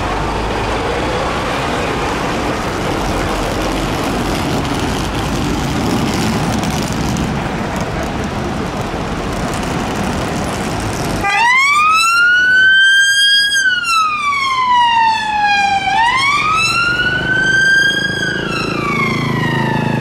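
Street traffic noise, then about eleven seconds in a Vauxhall Astra police car's siren starts its wail: a slow rising and falling tone that climbs and drops twice, becoming the loudest sound.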